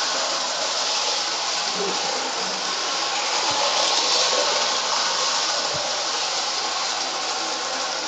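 K-Line O-scale toy steam train running around floor-level track: a continuous, even hissing whir from the locomotive's motor and the wheels rolling on the rails.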